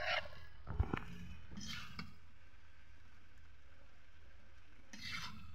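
A metal spoon scraping and knocking against a metal karai as the cooked curry is dished out: a few short scrapes and one sharp knock a little under a second in, over a low steady hum.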